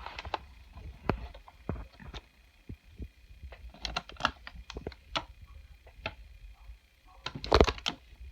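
Small hard plastic toys and their packaging being handled, making scattered clicks and taps, with a louder burst of clatter near the end.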